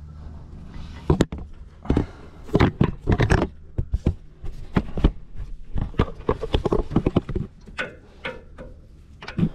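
Metal tools clicking and knocking on a serpentine belt tensioner as a breaker bar levers it back and an Allen wrench is worked into the hole behind it to pin it. The sharp clicks and clacks come in a quick, irregular run starting about a second in.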